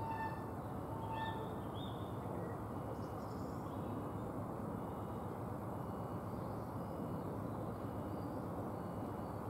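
Class 66 diesel locomotive with its two-stroke V12 engine, heading a freight train: a steady low rumble as it approaches. Birds chirp near the start, and a faint high note repeats about once a second.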